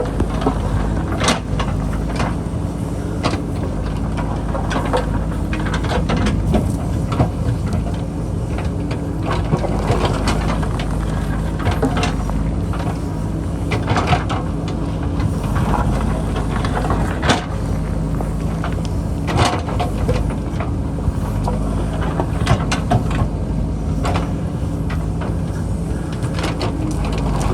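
JCB backhoe loader's diesel engine running steadily, with many sharp knocks and clattering of rocks and stones as the bucket cuts into a rocky hillside.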